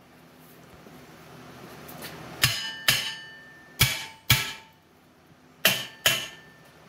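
Hammer striking freshly welded steel square tubing on a hand truck frame to test whether the weld holds. The six sharp blows come in three pairs, starting about two and a half seconds in, and each rings briefly like steel.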